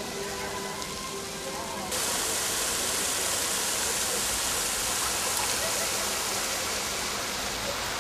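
Ornamental fountain jets splashing into a stone basin: a steady hiss of falling water that comes in suddenly about two seconds in.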